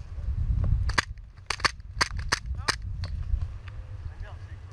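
Airsoft guns firing: about six sharp cracks in quick succession between one and three seconds in, over wind buffeting the microphone as a constant low rumble.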